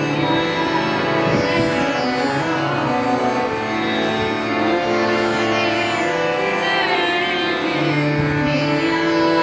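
Harmonium played in sustained notes under a woman singing a ghazal melody, her voice wavering through ornamented turns.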